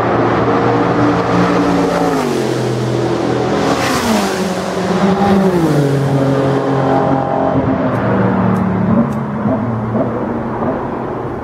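Race car engine passing at speed on the track, its pitch falling in three steps as it downshifts, then holding steadier as the sound fades slightly.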